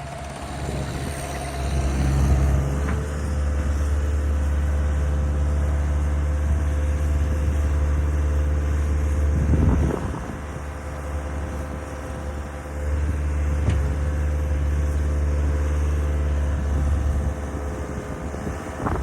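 A heavy-equipment engine running, with long stretches of higher revs that ease off twice: around ten seconds in and again near the end.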